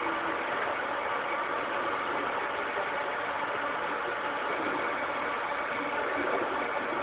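Metal lathe running steadily while turning a hard-chromed roller: an even mechanical hum and hiss with a few faint steady high tones in it.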